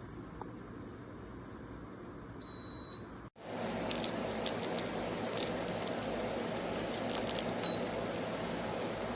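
A high electronic beep, about half a second long, from the KEENSTAR espresso machine's controls, then a much shorter chirp later on, over a steady background noise that gets louder after a sudden break about three seconds in.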